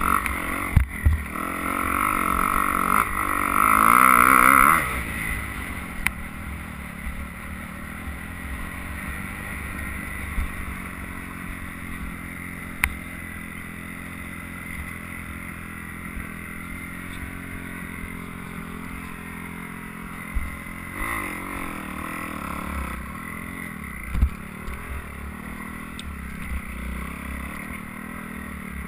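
Dirt bike engine heard through a helmet-mounted camera, revving hard for the first few seconds on a hill climb, then dropping to a lower, steadier throttle for most of the rest and picking up again briefly about three quarters of the way through. A few sharp knocks come through now and then.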